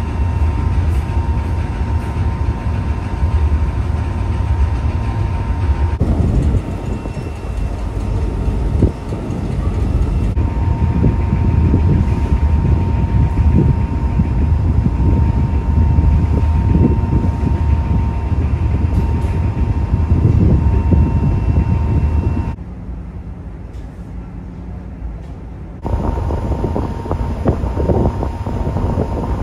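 Steady low rumble of a passenger ferry under way, with wind buffeting the microphone and a faint steady whine above it. The noise changes abruptly several times and drops quieter for a few seconds about twenty-two seconds in.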